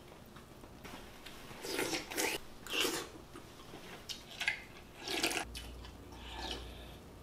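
A person eating and slurping soup, drinking it straight from the bowl's rim in several short, separate slurps.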